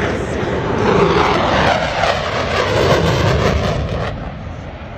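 Blue Angels F/A-18 Super Hornet jet passing low and fast, its twin turbofan engines sweeping down in pitch as it goes by and fading about four seconds in.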